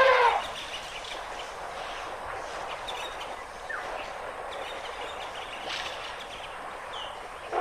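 Quiet outdoor ambience with a few faint short bird calls. A loud pitched call with several harmonics cuts off in the first half second.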